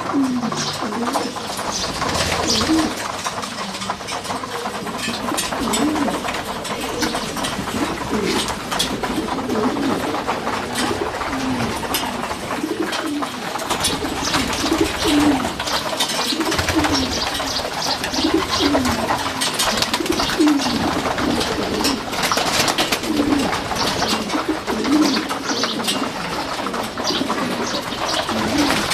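A loft full of racing pigeons cooing, one low rolling coo after another about every second, over many short clicks and wing flutters from the crowded flock.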